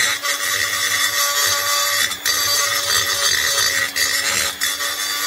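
Electric die grinder spinning a tungsten carbide burr against a cast-iron motorcycle cylinder head, cutting out and relieving the edge of a bolt boss so braze has something to stick to. It runs at a steady high whine with a rasping cut, which drops out briefly twice as the burr comes off the metal.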